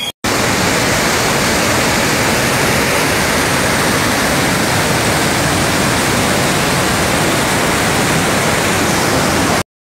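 Floodwater pouring from the opened spillway gates of the Idukki dam, a loud, steady rush of water that cuts off suddenly near the end.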